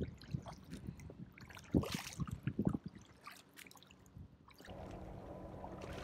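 Kayak paddle blades dipping and splashing in the water, with drips and trickles, in irregular strokes; the loudest splash comes about two seconds in. Near the end a steady rushing noise takes over.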